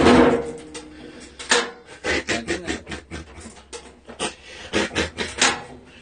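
A series of irregular sharp clicks and knocks, following a louder burst of sound right at the start.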